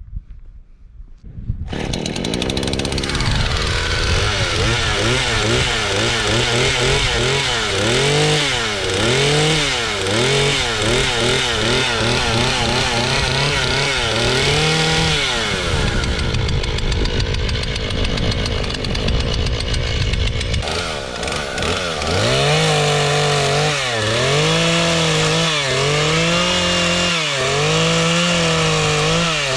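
Chainsaw starting about two seconds in, then cutting up a fallen tree trunk for firewood. The engine revs up and drops back again and again as the chain bites into the wood.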